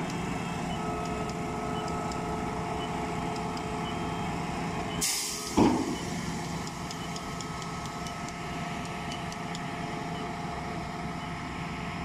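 Putzmeister M 42-4 truck-mounted concrete pump running steadily. About five seconds in comes a short burst of hissing air, then a brief loud sound that falls in pitch, after which the machine runs on.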